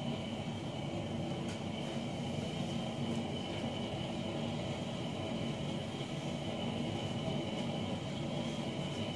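Workshop heater running: a steady, even drone with a thin, steady high tone over it.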